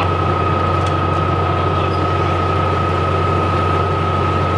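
A heavy engine running steadily at constant speed, with a steady high whine over a low hum.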